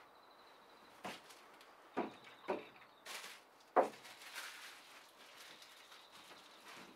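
A handful of sharp knocks and clunks at uneven intervals, about five in all, the loudest nearly four seconds in. A faint steady high tone runs under the first half and stops about three seconds in.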